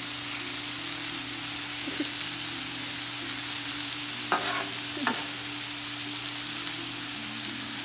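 Burger patties, onions and hot dogs sizzling on a Blackstone flat-top griddle, over a steady low hum. A metal spatula scrapes and knocks on the griddle twice about halfway through.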